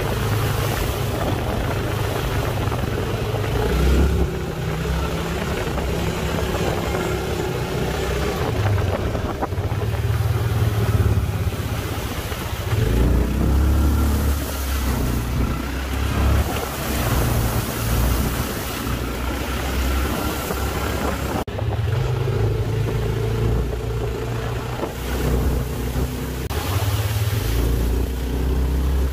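Off-road vehicle engine running while riding, its low drone shifting up and down in level, with wind buffeting the microphone.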